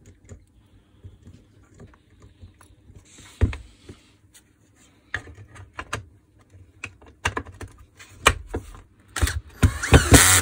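Plastic clicks and knocks of a Makita DDF453 cordless drill being put back together around its gearbox, with one sharper knock a few seconds in. Near the end a cordless screwdriver runs briefly, driving the housing screws.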